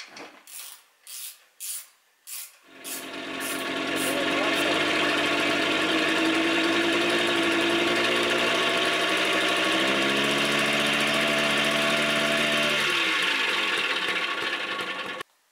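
Flandria SP 747 moped's 50 cc two-stroke engine on its first start, catching after a few short pops and then running steadily, dropping to a lower speed about two-thirds through before dying away. It smokes heavily because a forgotten seal is letting oil leak into the cylinder.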